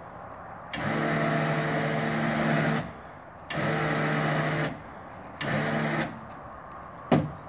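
Winch motor working a motorcycle loading ramp, running in three bursts that start and stop abruptly: a long one, a shorter one, then a brief one. A single sharp clunk follows near the end.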